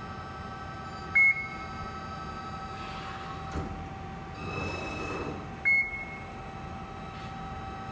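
Amada RG-25 hydraulic CNC press brake running: a steady hum from its hydraulic unit, broken by two short, loud, high beeps about four and a half seconds apart. A brief rush of noise comes just before the second beep, as the control steps to the next bend and the back gauge repositions.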